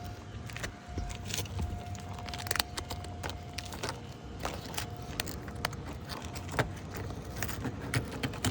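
Scattered sharp plastic clicks and taps of Christmas light clips and C9 bulbs being handled and snapped into place along the roofline, over a steady low background rumble.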